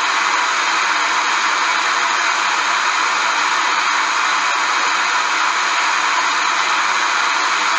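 Portable multiband radio giving a steady hiss of static, with no station tuned in.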